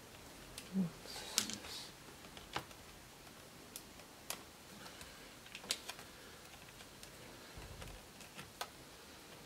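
Scattered light clicks and taps of a small screwdriver and metal hinge brackets as the screws holding the hinges to a laptop LCD panel's frame are undone, with a soft thump about a second in.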